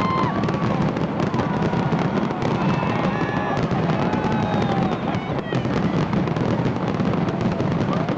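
Fireworks display: a dense, unbroken run of bangs and crackles, with a few high sounds gliding up and down over it.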